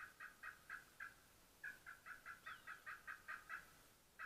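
Turkey yelping, faint: runs of evenly spaced yelps, each note breaking between two pitches, about four a second. One run ends about a second in, and a longer run of about ten yelps follows.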